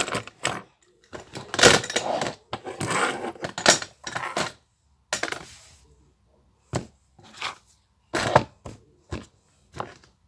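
Plastic fidget toys clacking and rattling as they are gathered up and put away, in irregular knocks and short rustling bursts with a brief pause midway.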